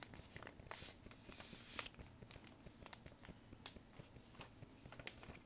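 Faint rustling and creasing of a paper airplane's paper being folded by hand, with light clicks and two longer rustles about one and two seconds in.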